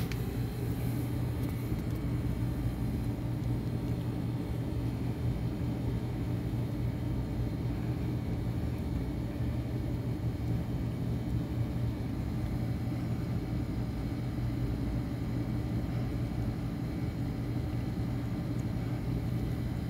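A steady low machine hum with a rumble beneath it, unchanging throughout.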